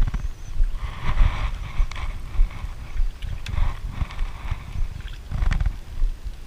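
Uneven low rumble of wind buffeting an action camera's microphone on a small boat, with patches of hiss and a few light clicks.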